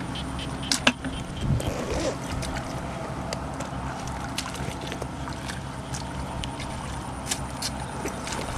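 Steady motor-like drone in the background, with a hoe scraping and slapping mud in shallow muddy water. There are a few sharp knocks and wet squelches as mud is dragged and scooped out by hand.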